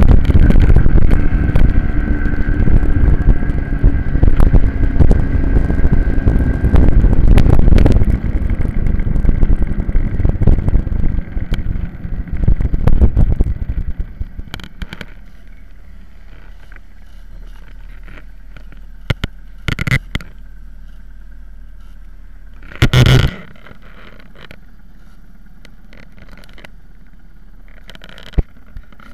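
Minibike engine heard from a camera mounted on the bike, running with heavy wind and road noise, then dying away about halfway through as the bike slows. After that there is a low steady hum with a few knocks, the loudest about three-quarters of the way in.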